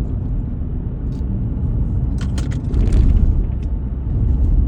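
Steady low rumble of a car driving on the road, engine and tyre noise heard from inside the moving vehicle.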